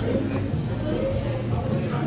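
Background music over the steady murmur and low hum of a café.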